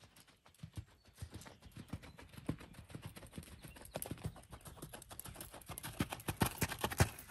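A horse's hoofbeats on a sand arena in a quick, even rhythm, growing louder as the horse comes closer.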